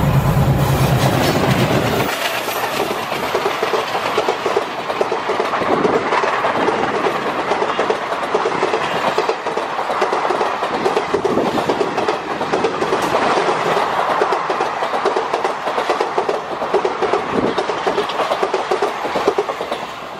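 An ALCO-type diesel locomotive's engine rumbles for the first two seconds, then stops abruptly. After that, the passenger coaches of an express rush past at speed, with a steady rumble and clickety-clack of wheels on the rails that eases slightly near the end as the last coach goes by.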